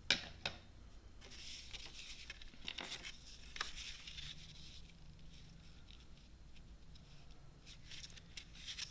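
Sheets of patterned paper and card stock being handled and slid across a table, rustling, with two sharp clicks at the start as the scissors are put down.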